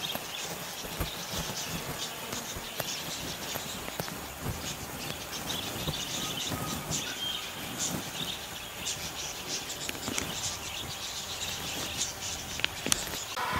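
Outdoor bush ambience: insects trilling steadily and birds chirping.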